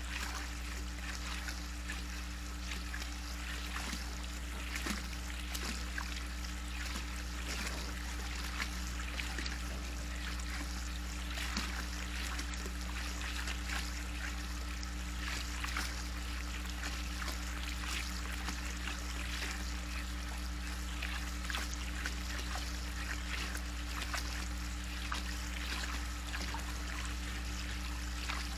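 Water trickling steadily in a backyard spa, with many small laps and splashes from raccoons dabbling and drinking at the edge, over a steady low hum.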